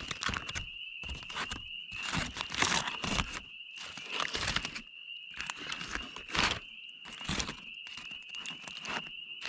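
Wrapping crinkling and tearing in irregular bursts as a cooked trout is pulled open. A steady high-pitched whine runs underneath.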